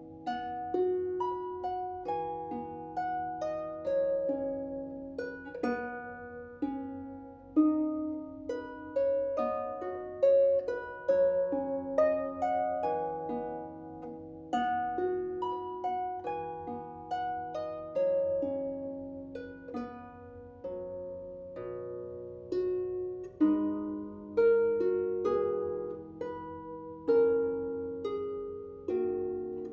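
Harp played solo: plucked notes and broken chords ringing and overlapping at a slow, flowing pace.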